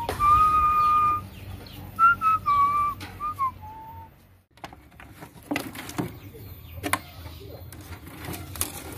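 A man whistling a short tune through pursed lips: a held note, then several short notes, the last one sliding down. The whistling stops about four seconds in, and a few light clicks and knocks follow.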